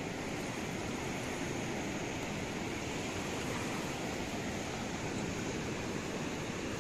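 A wide, fast-flowing river rushing past: a steady, unbroken noise of moving water.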